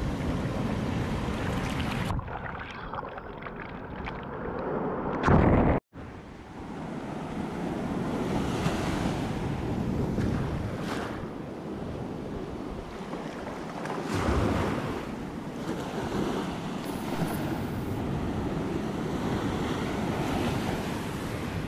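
Sea waves breaking and washing up over sand right at the microphone, a steady rush with louder surges as each wave comes in. From about two seconds in the sound goes dull and muffled for a few seconds, as if water is washing over the microphone. It ends in a loud rush and a sudden brief drop-out.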